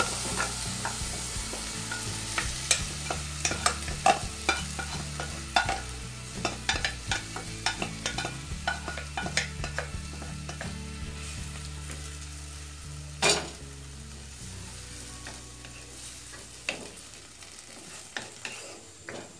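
Boiled vegetables and their cooking water poured into a hot frying pan of fried egg and onion, hissing at first and then fading. A wooden spatula scrapes and clicks against the steel pot and the pan over and over, with one louder knock a little after halfway through.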